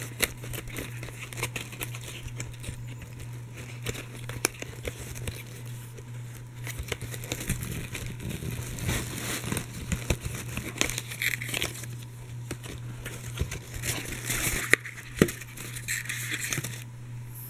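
Packaging crinkling and crackling irregularly as a cosmetic is unwrapped by hand, with a couple of louder crackles near the end, over a steady low hum.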